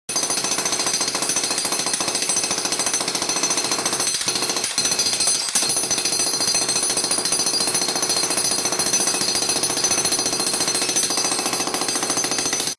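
Rapid, steady mechanical hammering that stops abruptly at the end.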